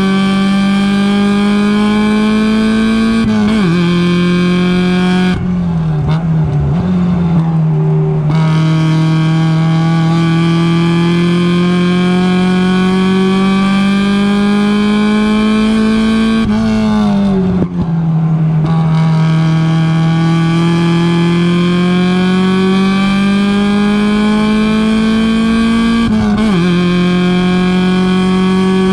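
Mazda race car's engine at racing speed, heard from on board. The pitch climbs slowly under throttle and drops sharply about three and a half seconds in and again about twenty-six seconds in. It falls away with a wavering note around six seconds and again around seventeen seconds in.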